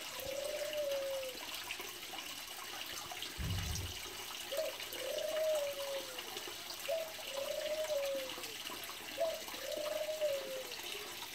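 Water from a small garden-pond waterfall running and trickling steadily, while a dove coos over it: a short note followed by a longer falling one, repeated about every two seconds.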